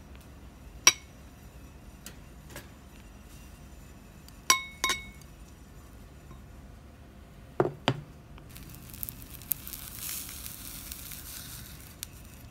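Ceramic dishes clinking: a sharp ringing clink about a second in, then two more ringing clinks as a plate of diced spam is tipped against a rice bowl. Two duller knocks follow, then a few seconds of hissing as a fried egg is slid out of a frying pan onto the rice.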